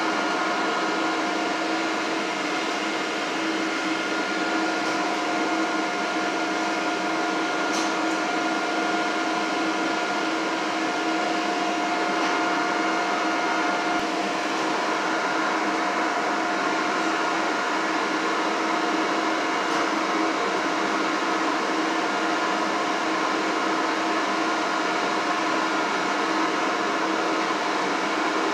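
Steady hum inside a CTA 3200-series rail car: an even machinery noise with a few steady whining tones, holding at one level.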